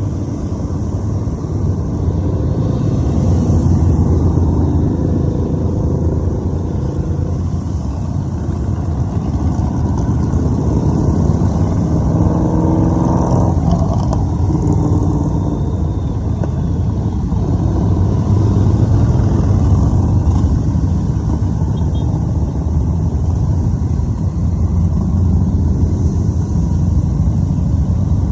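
A column of many motorcycles, mostly cruiser and touring bikes, riding past with their engines running in a continuous loud rumble. The rumble swells and eases as groups of bikes go by. About halfway through, a rising engine note comes from a bike accelerating.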